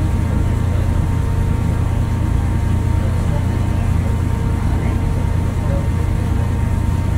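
Steady low rumble of a JR West Miyajima passenger ferry's diesel engines running under way, with a faint thin steady tone above it.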